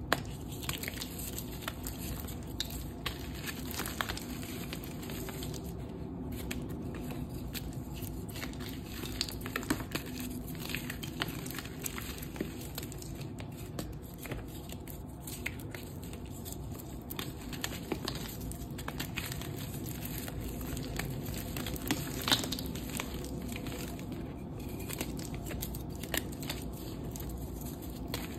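Hands crushing and crumbling dry, dusty reformed gym chalk blocks: a steady run of small crunches and crackles as the chalk breaks apart, with one sharper snap about three-quarters of the way through.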